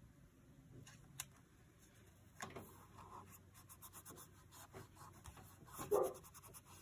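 Paper and sticker sheets being handled on a desk: light rustling, scratching and small clicks. About six seconds in, a short call from the household pet, Wolfric, who yells whenever someone is working outside.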